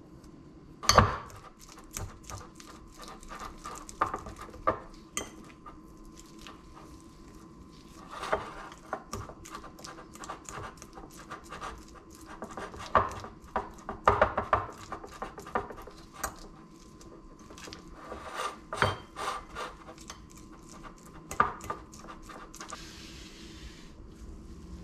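A kitchen knife cutting and scraping butter in a plate: irregular runs of taps and clicks of the blade against the plate, the loudest about a second in, over a faint steady hum.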